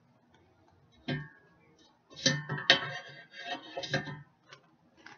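Handling noise while chicken pieces go into an air fryer basket: a sharp click about a second in, then about two seconds of dense rustling and knocking.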